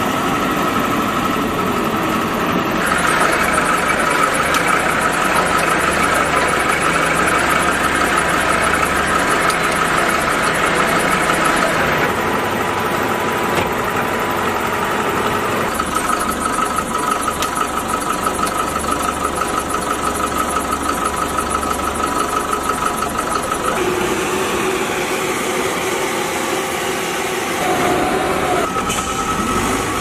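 Small backhoe loader's engine running steadily with a thin high whine, its sound changing abruptly every several seconds.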